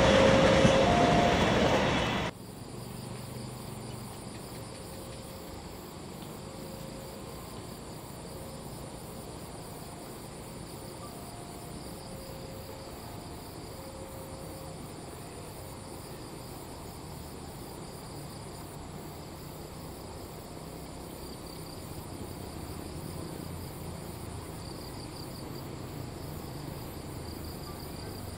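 A passenger train running past on the rails, loud, cut off suddenly about two seconds in. Then crickets and other insects chirring steadily, over a faint low rumble that grows a little near the end as a diesel locomotive approaches.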